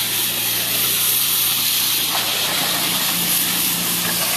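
Pressure washer spraying a high-pressure water jet onto a house's siding: a steady loud hiss, with the machine's motor humming steadily underneath.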